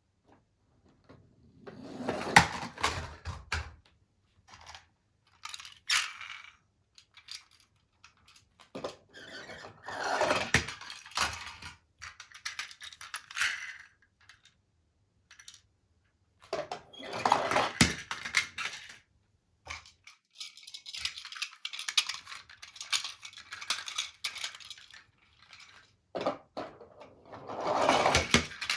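Hard plastic toy vehicles being handled and pushed along a surface, clattering and scraping in bursts of a few seconds with short quiet gaps between.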